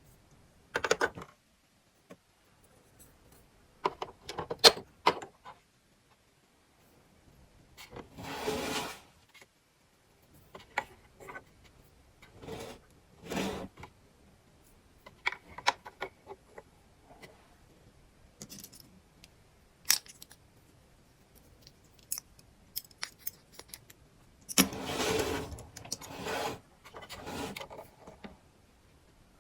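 Small plastic toy pieces being handled and unpacked: scattered clicks and light clatters, with two longer rustles, the first about a third of the way in and the loudest near the end.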